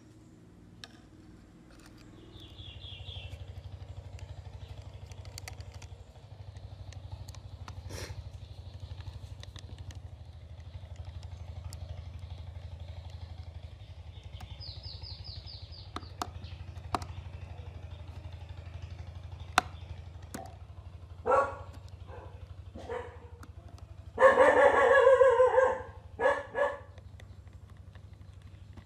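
Faint sharp clicks of a precision screwdriver working small screws into a phone's metal frame, over a steady low hum. Near the end come a few loud calls, one of them lasting over a second.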